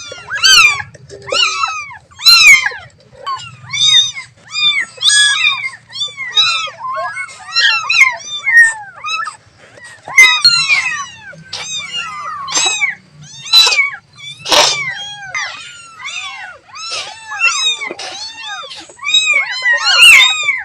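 Kitten mewing over and over, short high-pitched calls in quick succession with hardly a pause: a baby cat crying for its mother.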